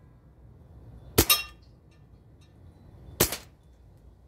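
Two shots from an AEA precharged air rifle firing lead slugs, about two seconds apart. The first is followed by a brief metallic ring.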